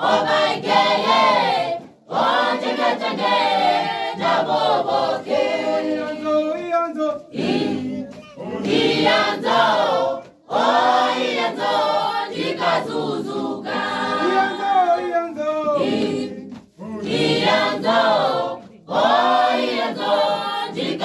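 Mixed choir of men's and women's voices singing a cappella, in sung phrases with short complete breaks between them.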